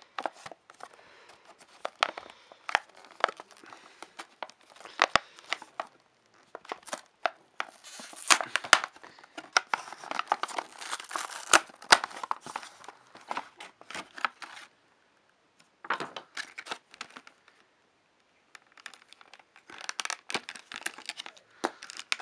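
Cardboard toy packaging being ripped open by hand: bouts of tearing and crinkling with sharp snaps, with two short pauses about two-thirds of the way through.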